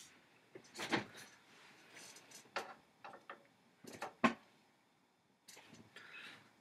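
Beaten eggs being stirred in a nonstick skillet with a silicone spatula: a few scattered knocks and clicks against the pan, the loudest about a second in and about four seconds in, and a short scrape near the end.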